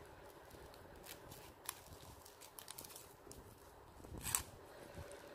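Ribbon rustling and crinkling in the fingers as its strands are twisted and tucked into a rose, with scattered small clicks and a louder rustle about four seconds in.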